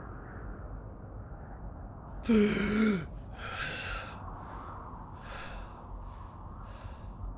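A person gasps loudly with a short voiced cry about two seconds in, then takes a long noisy breath followed by a few fainter breaths.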